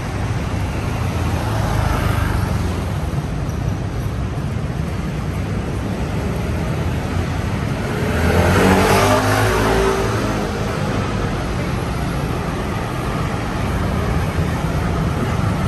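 Road traffic on a city street: a steady low rumble, with one vehicle passing close and loudest about eight seconds in.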